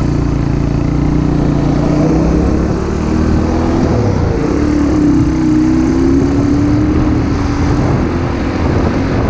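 Diesel engine of a heavily loaded cargo truck, about 40 tons of fertilizer, running hard as the truck drives off. Its pitch dips about four seconds in and then climbs again.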